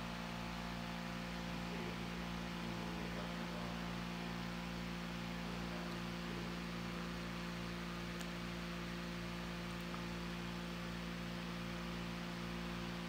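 Steady low electrical hum with a faint even hiss, unchanging throughout.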